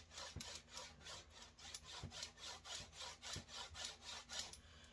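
A hand rubbing quickly back and forth along a bent wooden arrow shaft, about six scratchy strokes a second, while the shaft is flexed to straighten a wobble near the point.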